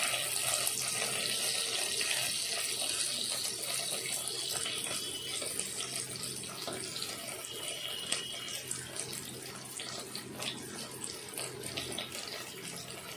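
Chopped onions and garlic sizzling in hot oil in a pan: a steady crackling hiss that slowly gets quieter.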